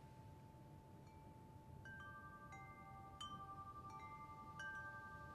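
Faint chimes: single clear notes at different pitches struck at uneven intervals, most of them from about two seconds in, each ringing on and overlapping the others.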